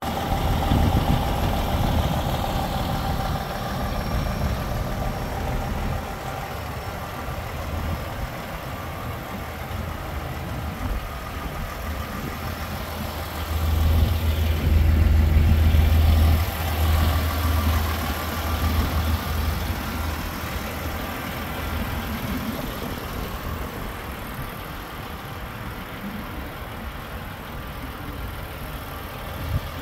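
DAF XF 480 tractor unit's PACCAR MX-13 inline-six diesel idling steadily, louder for a few seconds around the middle.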